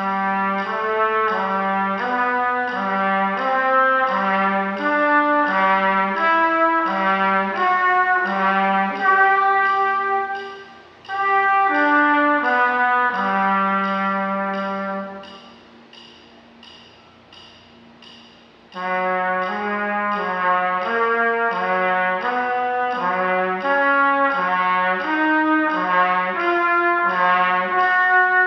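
Trumpet playing slurred intervals in the middle and low register: a repeated low note alternating with higher notes in connected phrases. A short breath about ten seconds in, then a longer pause from about 16 to 19 seconds before the playing resumes.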